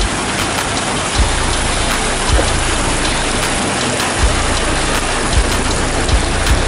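Wet concrete pouring down a concrete mixer truck's discharge chute, a steady gritty rush like heavy rain, with a short knock about once a second, over the low running of the truck's engine and turning drum.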